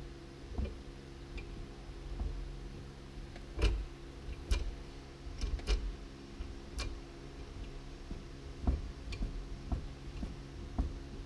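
Irregular clicks and knocks from a VW Transporter T4's gear selector linkage as the gear stick is worked back and forth, the slack coming from its failed linkage bushes. A steady low hum runs underneath.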